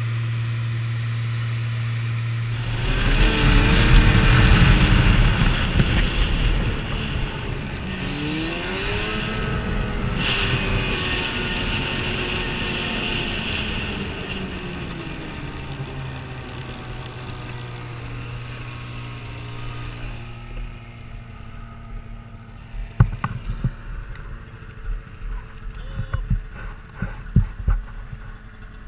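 A steady low drone for the first few seconds, then a snowmobile engine running at speed with rushing wind, its pitch rising and falling as the throttle changes. It eases off to a low idle, with scattered knocks near the end.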